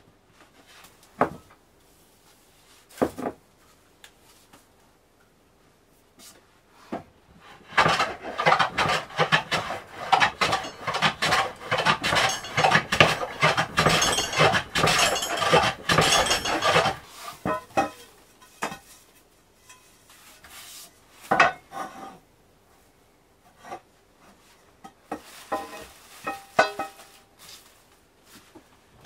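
A wooden block rubbed rapidly back and forth against a wooden board for about nine seconds, a dense scraping, with a few single wooden knocks before it and a short spell of handling noise near the end.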